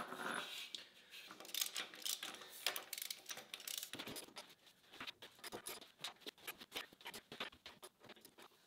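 A short scuff at the start, then quick, irregular metallic clicking as the levelling bolts on a surface grinder's steel base are turned.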